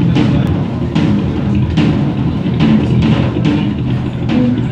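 A live band playing: a drum kit keeps a steady beat under electric guitars and saxophones.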